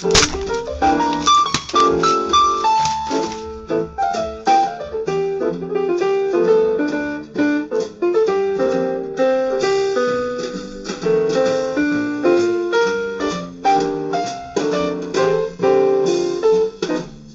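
Background jazz music: a piano playing a busy run of notes.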